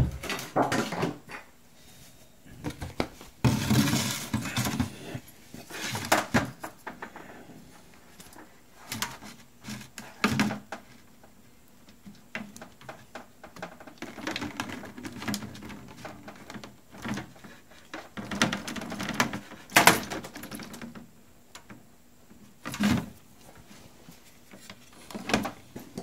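Hands working on a refrigerator water inlet valve and its plastic fittings: irregular clicks, knocks and rattles of plastic and metal parts, some sharper knocks standing out among the quieter handling noise.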